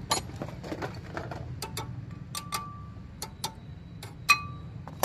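Irregular metal clicks and clinks from a C-clamp being worked to press a brake caliper piston back into its bore. The sharpest clink comes a little over four seconds in and rings briefly.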